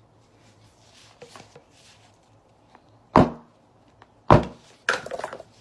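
Three sudden thuds of something hard knocked or set down on a work surface, the last followed by a short clatter of smaller knocks.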